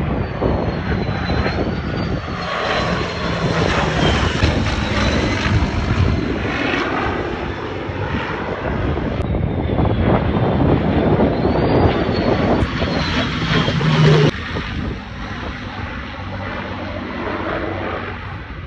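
Jet engines of a formation of Blue Angels jets flying overhead: loud, steady engine noise with a thin high whine that rises and falls, dropping suddenly in level about fourteen seconds in.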